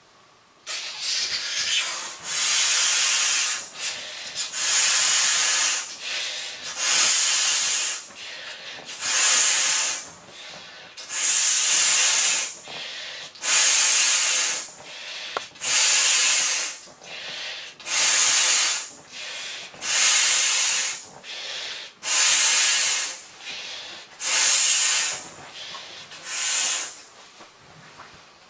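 Breath blown hard by mouth through the valve of a large vinyl beach ball, a hissing rush of air repeating about every two seconds, each blow lasting a second or so, with quieter gaps between.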